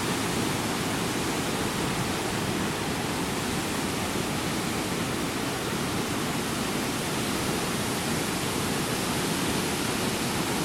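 Alexander Falls, a large waterfall on the Hay River, rushing in a steady, unbroken roar that is fullest in its deep lower range.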